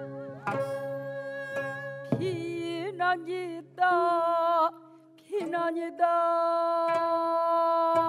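Korean traditional changgeuk music: a wavering, sliding melody, with singing, over a low held drone. A few sharp drum strokes fall through it, and the music thins briefly about five seconds in.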